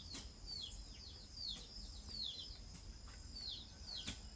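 Birds and chicks chirping: short high peeps, each sliding down in pitch, about two a second, with a brief lull a little past the middle.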